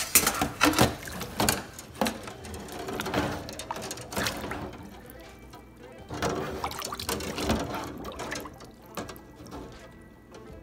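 Water sloshing in a stainless steel sink around a submerged coil of stainless steel tubing as the tubing is filled with water, with a few sharp knocks and splashes in the first couple of seconds.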